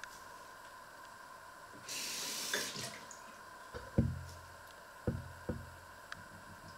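Water runs briefly with a short hiss, then a glass and a stainless steel pot knock together in four dull clunks, with a little ringing after each.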